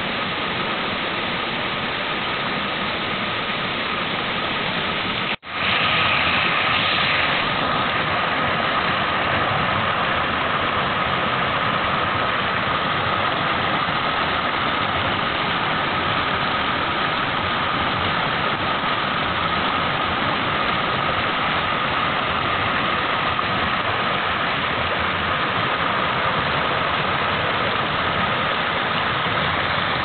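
Stream water rushing over smooth rock slabs in a small cascade: a steady, loud rush. It drops out for a split second about five seconds in and comes back a little louder.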